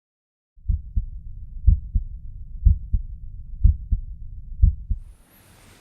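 Heart sounds with a murmur: a lub-dub about once a second, with a steady low murmur filling the gaps between beats. It starts abruptly and stops about five seconds in.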